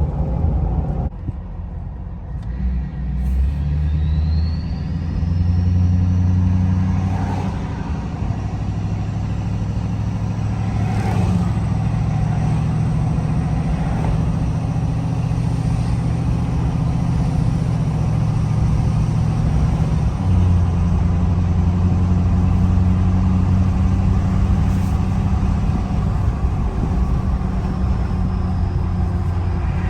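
Ford 6.7 Powerstroke diesel with a Stage 1 KC Whistler turbo and a 4-inch exhaust with no muffler or resonator, heard from the cab with the window down as the truck drives. A few seconds in, the turbo's whistle rises in pitch as the engine pulls. After that the engine runs steadily at speed.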